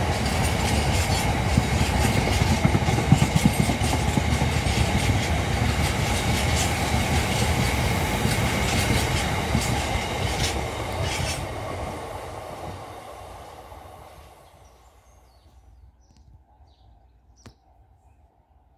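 A freight train of bogie cement hopper wagons rolls past: a steady rumble of wheels on rail, with repeated clicks over the rail joints and a thin high ring running through it. The noise dies away from about twelve seconds in.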